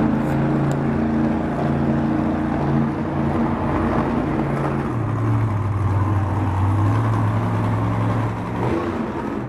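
Jurassic Attack monster truck's supercharged V8 engine running under throttle as the truck drives and tips onto two wheels; its note drops to a lower, steadier pitch about halfway through.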